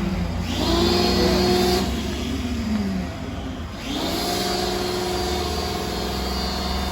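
A motor revs up and holds a steady pitch, falls away about two seconds in, then revs up again and runs steadily until it cuts off near the end.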